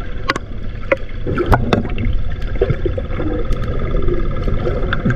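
Underwater sound picked up by a submerged camera: a steady muffled low rumble of water with scattered sharp clicks and knocks, strongest about one and a half seconds in, over faint wavering tones and a faint steady high whine.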